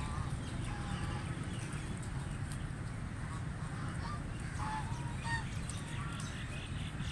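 White domestic ducks quacking in short, scattered calls, several within a few seconds. A steady low rumble runs underneath.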